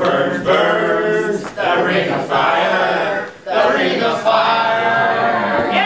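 A cappella singing by a man with other voices joining in. It comes in long held phrases, broken by short pauses about one and a half and three and a half seconds in.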